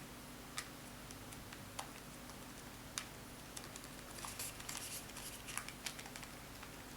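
Rubber buttons of a Cambridge Audio amplifier remote control being pressed, giving faint soft clicks: three single presses about a second apart, then a quicker run of presses in the second half.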